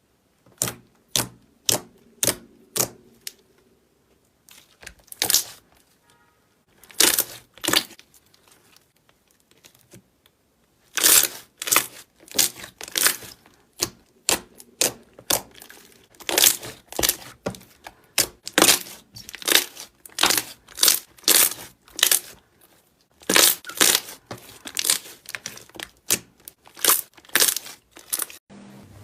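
Slime being pressed and squeezed by hand, giving short crackling squishes about two a second, in runs broken by brief pauses.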